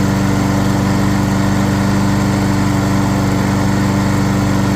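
Lawn mower's small gasoline engine running steadily at a constant speed, its carburetor freshly cleaned to cure a rough idle.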